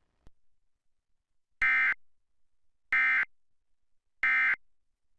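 Emergency Alert System end-of-message signal: three short, loud bursts of SAME digital data tones, evenly spaced about a second and a half apart, marking the end of the alert. A faint click comes just before them.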